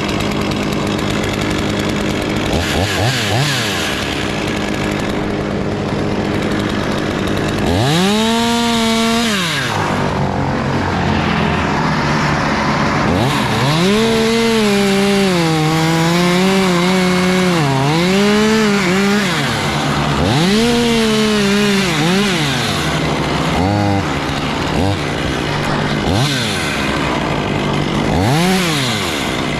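Chainsaw revving up and cutting in repeated bursts, with one long cut of several seconds in the middle, over a steady engine hum.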